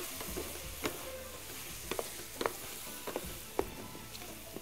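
Two wooden spatulas stirring and turning a spiced vegetable filling that sizzles as it fries in a metal pan on a gas burner, with irregular knocks of wood against the pan.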